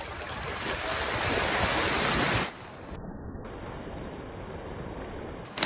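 Steady rushing noise of sea surf and wind, with no distinct events. About two and a half seconds in it drops to a quieter, duller hiss.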